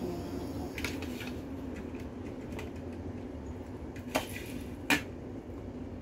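A few light clinks and taps of a ceramic plate or dish, with two sharper clinks near the end, the second the loudest, over a steady low hum.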